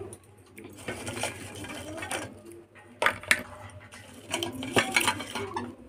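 Crisp fried papad pieces handled in a steel bowl and set down on a plate: light clatters and rustles, with sharper clicks near three seconds and again around five seconds in.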